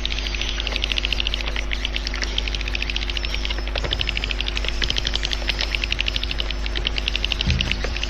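Swiftlet calling sound: a dense, rapid twittering of many swiftlet chirps, the lure call played at swiftlet houses to draw the birds in to nest. It runs over a steady low electrical hum, with a brief low thud near the end.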